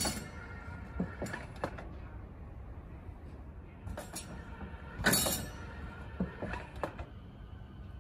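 An electric railway point machine throwing a turnout's switch rails: a sharp metallic clunk and rattle, followed by a few lighter clicks. This happens twice, at the start and again about five seconds in.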